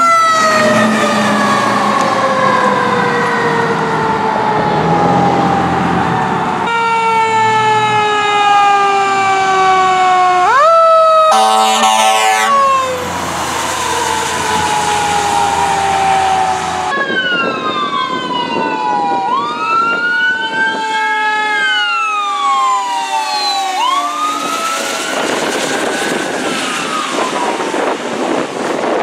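Sirens of several responding fire trucks, one after another. First a siren slides slowly down in pitch and then climbs quickly; from a little past halfway, sirens rise and fall in repeated wails.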